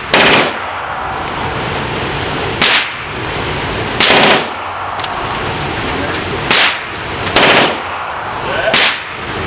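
Rifle gunfire in an indoor range, some single shots and some short rapid bursts, spaced a second or two apart, over a steady hiss.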